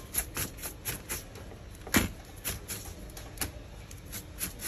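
Soft brush sweeping dust off a laptop's plastic top-case frame in quick, repeated rustling strokes, with one sharper knock about two seconds in.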